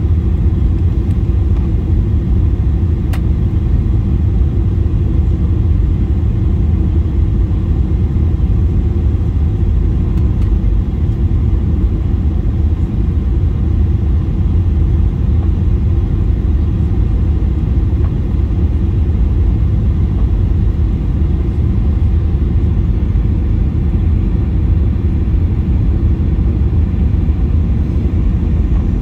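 Cabin noise inside a Boeing 737-800: a steady low rumble of the engines and rushing air, unchanging throughout.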